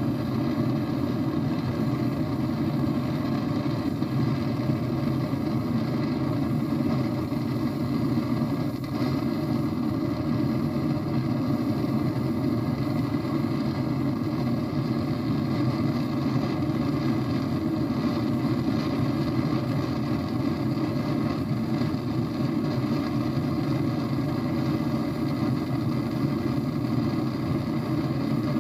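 Old hand-pumped gasoline blowtorch burning at full flame: a steady, low-pitched rushing roar from the burner that holds unchanged throughout.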